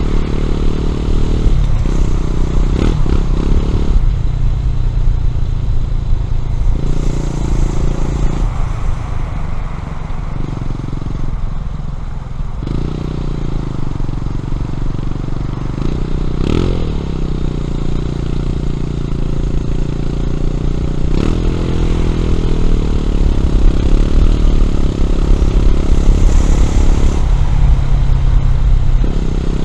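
Honda CB400SS air-cooled single-cylinder engine through a Yamamoto A-spec exhaust, under way. Its note rises and falls repeatedly as the rider opens the throttle, shifts and rolls off, with a short sharp rev rise and fall about two-thirds of the way through.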